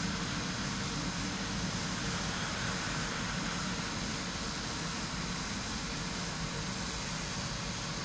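Steady rushing noise with a low rumble and a faint thin high tone, holding even throughout with no distinct events.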